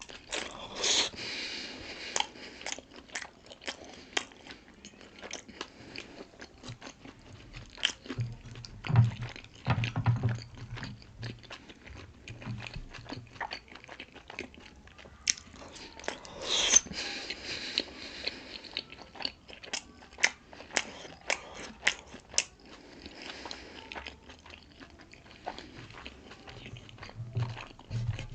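Close-miked chewing and biting of pork momos, with many wet mouth clicks and smacks. There are two longer, louder stretches, one about a second in and one about midway.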